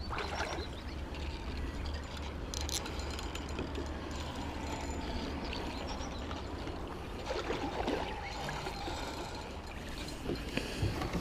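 Water lapping and trickling around a small float boat on a river, with a steady low hum underneath and a few light clicks.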